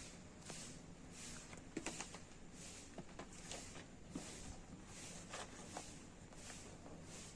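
Faint outdoor ambience: a high, hissy insect pulse repeating about twice a second, with a few short bird chirps and light clicks.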